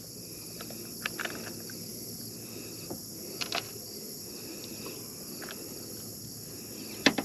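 Steady high-pitched insect chorus, with a few small clicks and knocks, the loudest one near the end.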